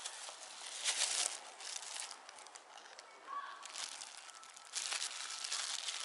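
Thin clear plastic bags worn as gloves crinkling in irregular bursts as the hands handle a small metal part and a pair of pliers.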